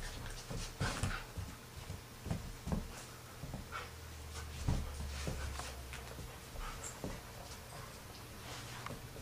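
Collie puppy and adult collie play-fighting: short, scattered dog noises mixed with the scuffling and knocks of their bodies and paws.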